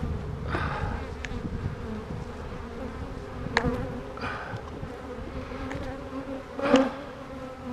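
A honeybee colony buzzing steadily as its frames are out for inspection, a constant hum from the many bees' wings. A couple of short knocks cut through the hum, one about halfway in and a louder one near the end.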